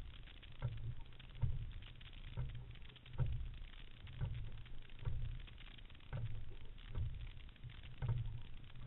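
Fluidesign single scull being rowed, heard through its hull: a low knock about once a second as the oars work in the oarlocks with each stroke, over the steady rush of water along the hull.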